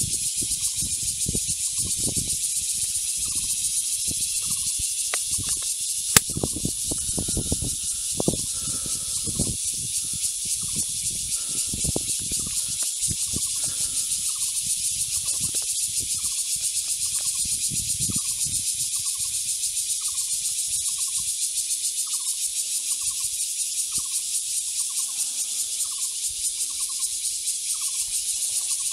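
Steady high buzzing of insects in the grass. From about seven seconds in, a short chirp repeats about once a second. Underneath are low rumbles and knocks from an airsoft rifle being handled, with one sharp click about six seconds in.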